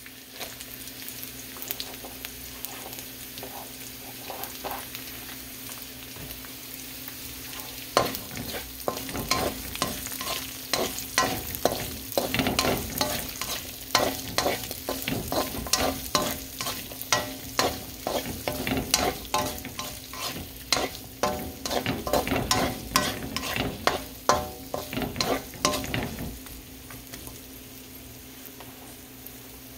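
Diced onions and garlic sizzling in oil in a black wok. Partway through, a slotted spatula stirs them for a long stretch, with rapid scraping and clacking against the pan, then stops and the steady sizzle is left near the end.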